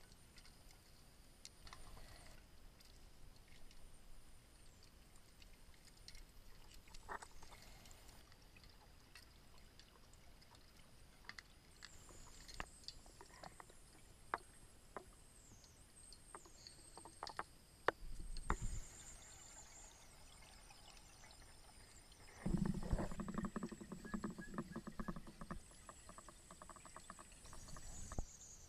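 Underwater sound picked up by a diver's camera: faint scattered clicks and knocks, then a few seconds of rapid bubbling, typical of a diver's exhaled air, about three-quarters of the way in.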